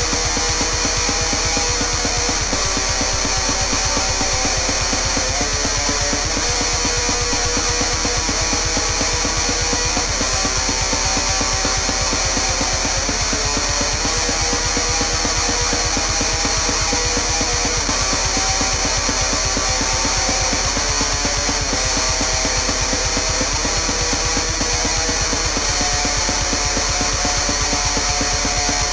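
Heavy metal music: a guitar riff over a fast, steady beat, the chords changing about every four seconds.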